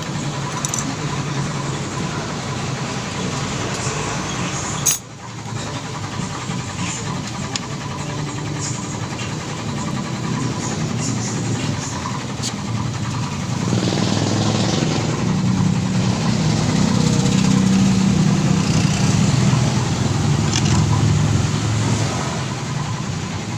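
Motorcycle engine running steadily, with a sharp click and a brief drop about five seconds in. It grows louder from about two-thirds of the way through.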